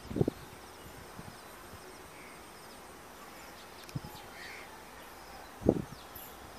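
Quiet open-air trackside ambience with faint bird and insect calls, broken by three short low thumps on the microphone; the loudest comes near the end.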